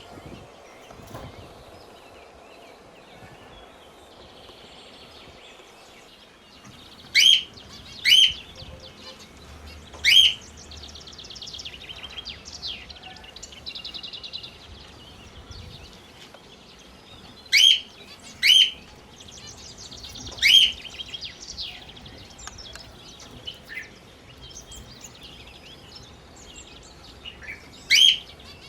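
Pet parrots calling: about seven loud, shrill, short rising calls, several in pairs about a second apart, over soft continuous chirping and warbling.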